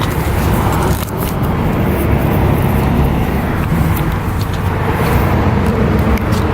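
Car engines running steadily as cars pull out and leave a car meet.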